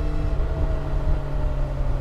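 2022 BMW S1000R's inline-four engine running under way, holding a fairly steady note whose pitch eases slightly lower, over a low rumble.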